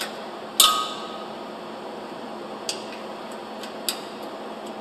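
Metal hand tool clinking against the steel parts inside a concrete pump's flush box. One sharp clink with a short ring comes about half a second in, and lighter taps come near 3 and 4 seconds, over a steady background noise.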